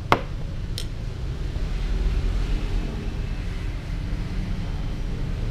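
Camera handling noise: a sharp knock just after the start and a fainter click just under a second in, over a steady low rumble.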